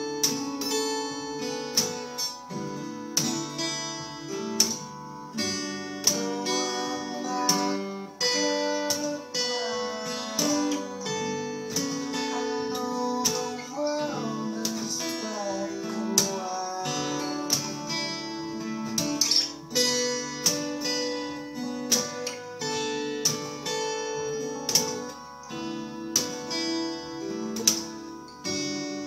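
Steel-string acoustic guitar fingerpicked, with sustained chord notes and frequent sharp percussive hits on the strings in a steady rhythm.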